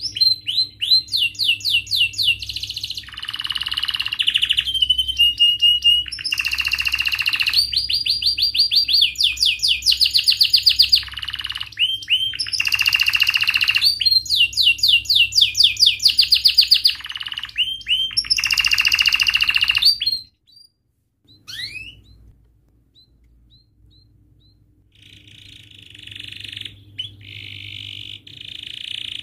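Domestic canary singing loudly in long runs of fast rolling trills and high chirps. The song breaks off about two-thirds of the way through, leaving a few scattered chirps, then resumes near the end as a buzzier trill.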